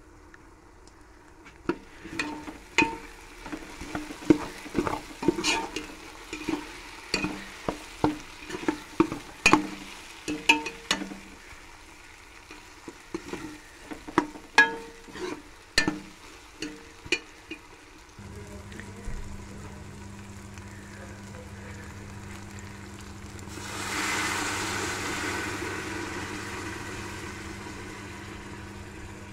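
A metal ladle scrapes and knocks against the side of an aluminium pot as minced meat and potatoes are stirred and fried, in a quick run of clicks. A steady low hum comes in about 18 seconds in. Around 24 seconds in, a loud sizzling hiss rises, the sound of liquid hitting the hot pot, and then slowly dies down.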